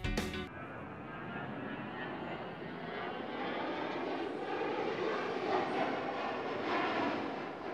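Jet fighter engines: a steady, even noise of jets in flight, swelling slightly twice in the second half. A guitar music track cuts off about half a second in.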